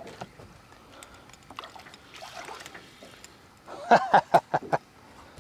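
Faint water splashing and rod-handling noise as a bass is reeled up beside a boat. About four seconds in comes a man's short, loud vocal outburst of several quick pitched bursts.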